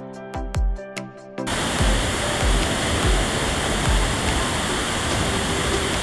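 Background music with a steady beat that cuts off abruptly about a second and a half in. It gives way to the loud, steady rushing roar of a waterfall.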